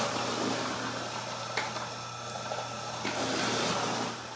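Electric juicer running with a steady motor hum as produce is pressed down its feed chute and ground into juice.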